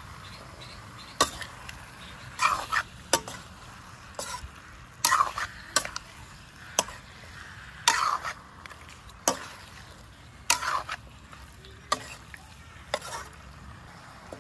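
Metal ladle scraping and clanking against a metal wok, roughly once a second, as pork intestine and offal are stirred, with a steady frying sizzle underneath.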